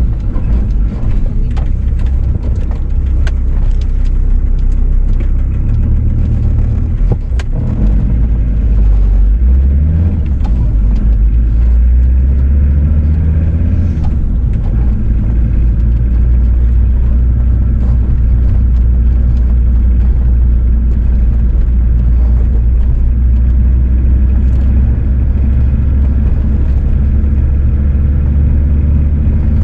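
Car driving, heard from inside the cabin: a steady low rumble of engine and road noise, stepping up in pitch a couple of times in the first ten seconds, with a few faint clicks early on.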